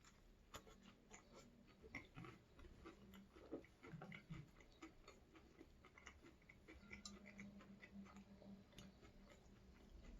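Faint chewing of a chicken burger: irregular small wet mouth clicks and crunches, with a brief low closed-mouth hum of appreciation.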